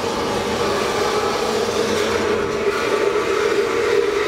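Stockholm metro train running in the station: a steady rumble with a held whine.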